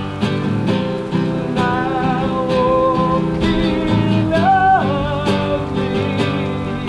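Background music: a song with strummed acoustic guitar and a gliding melody line, with a steady beat.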